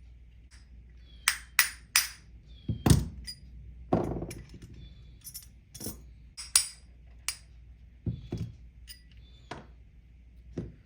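Irregular series of sharp metallic taps and knocks, about a dozen, some with a brief ring: a small hammer and punch knocking a plug out of an RC car's rear hub assembly.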